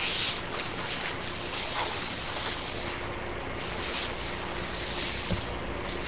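Chalk scraping on a blackboard in a few long strokes as curved lines are drawn, over a steady background hiss.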